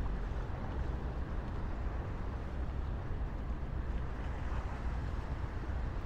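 Steady noise of highway traffic from the Shore Parkway running beside the path: a continuous low rumble with an even hiss above it and no single vehicle standing out.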